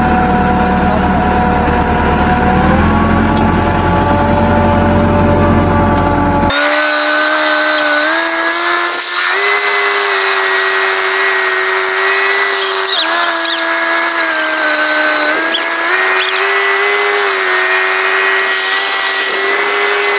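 Tractor's diesel engine running as it drives, a deep steady throb. About six seconds in, the sound changes abruptly to a thinner, higher whine whose pitch steps up and down several times.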